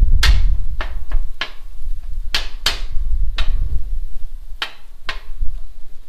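Metal spatula chopping and scraping ground beef against the steel top of a Blackstone griddle: about nine sharp, irregular clacks, over a steady low rumble.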